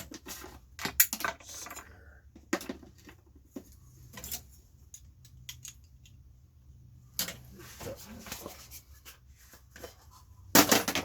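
Irregular clicks and clatter of small metal and plastic parts handled while an old cassette deck is dismantled, with a louder burst of clattering near the end.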